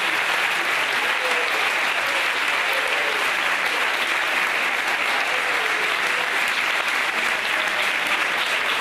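Large audience of schoolchildren and adults applauding steadily in a hall, a long dense round of clapping after a call for a big hand.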